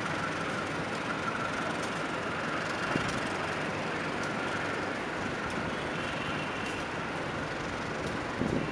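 Executive passenger coaches of the Argo Sindoro train rolling past along a station platform: a steady rumble and rush of wheels on rail with a faint high whine. A few low knocks come near the end.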